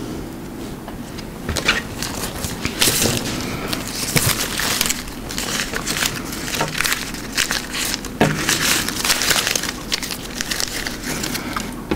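Irregular crackling and scraping as a self-adhesive closed-cell foam cushion strip is worked into a slot in a plywood bench top, with a few sharp clicks among it.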